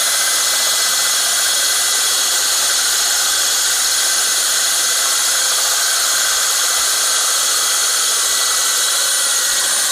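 SDS-plus rotary hammer driving a dry diamond core bit into concrete: a loud, steady grinding noise with a faint high whine that runs without a break.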